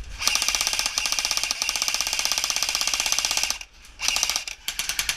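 Airsoft electric gun firing on full auto: one long rapid burst of about three seconds, a short pause, then two shorter bursts.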